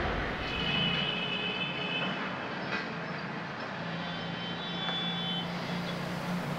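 Steady city traffic hum, with faint held tones coming in twice over it.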